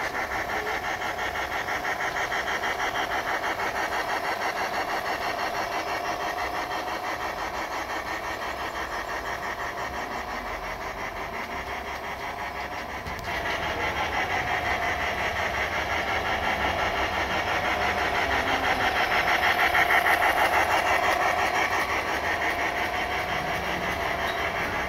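Miniature model train running on its track: a steady mechanical hum with a fast, even clatter. It gets louder about halfway through and is loudest a few seconds after that.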